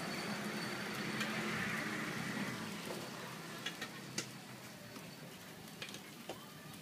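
Cooking oil sizzling in a street-food frying pan, a steady hiss that fades after about two and a half seconds. A few light clicks of the metal cooking utensils follow in the second half.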